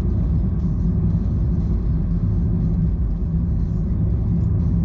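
Steady low road and tyre rumble inside the cabin of a Nissan Note e-Power Nismo S on the move.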